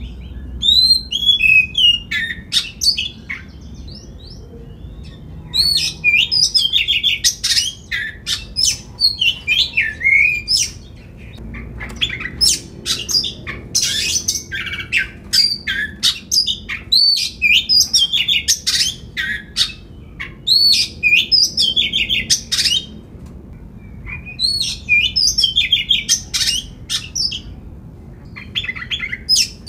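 Oriental magpie-robin singing loudly: gliding whistles, rapid chattering trills and a few harsh notes, in bursts of phrases broken by short pauses.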